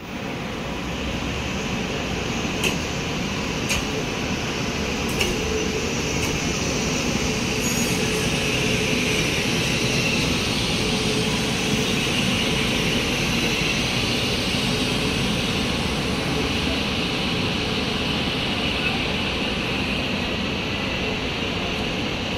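A train running through a railway station: a steady rumble and hiss throughout, swelling slightly in the middle, with a few sharp clicks in the first several seconds.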